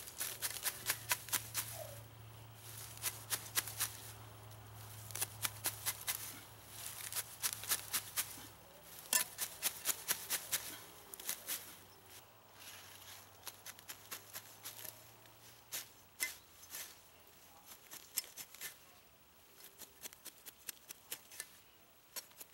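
Grass hook (hand sickle) cutting through clumps of grass, each stroke a quick cluster of crisp snips as the blade shears the stems, with short pauses between clumps. The cuts come more thinly in the second half.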